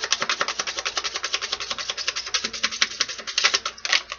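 Oracle cards being shuffled by hand: a fast, even patter of card flicks that stops abruptly about four seconds in.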